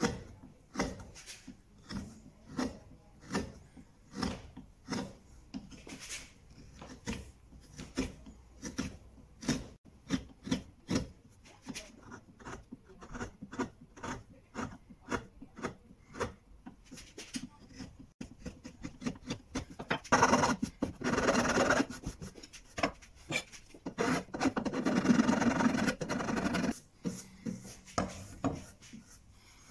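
A hand file rasping over the painted wooden edge of a table leg in regular strokes, about two a second, taking down dog-chewed bumps and rounding the edge off. About two-thirds of the way through come two longer stretches of fast, continuous rubbing.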